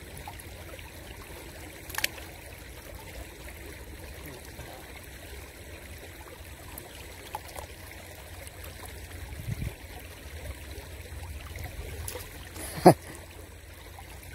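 Shallow stream water trickling steadily over stones, with a sharp knock about two seconds in and a louder one near the end.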